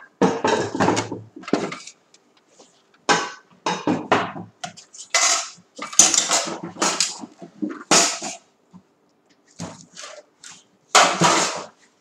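Small hard objects and metal tongs being picked up and set down on a tray, in irregular bursts of clattering and knocking.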